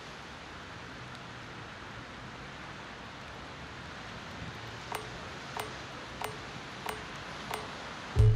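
Synthesised electronic sound: a faint steady hiss, then from about five seconds in five evenly spaced sharp ticks, about one and a half a second, each leaving a short soft tone. Just before the end a loud low tone sets in.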